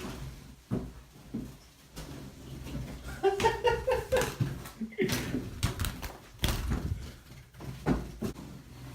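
Scattered knocks and thumps of someone scrambling about a small room after a loose bird, with a short voice sound about three seconds in.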